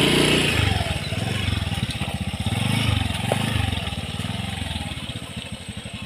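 Small motorbike engine revving in repeated surges that rise and fall, as the bike crawls along a muddy dirt track.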